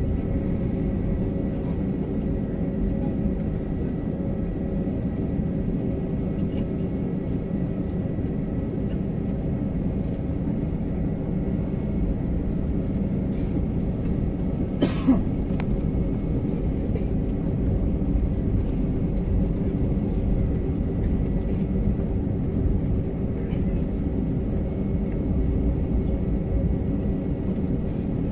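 Steady cabin noise inside an Airbus A320: a low rumble with a steady hum. A single sharp knock about halfway through.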